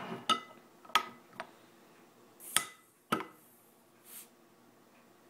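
A glass beer bottle being opened on a table: several separate sharp clicks and knocks as the bottle and opener are handled and the crown cap is pried off.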